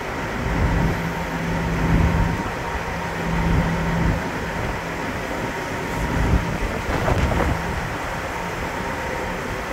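Wind buffeting the microphone over the low drone of a ferry's engines during docking, rising and falling in gusts, with a steady low hum through the first few seconds.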